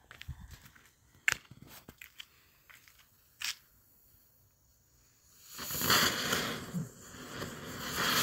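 Scattered crackles and sharp pops while the fuse burns. About five and a half seconds in, a small homemade ammonium perchlorate composite propellant motor in a plastic straw ignites and burns with a loud, steady hissing rush. It burns in place rather than lifting off.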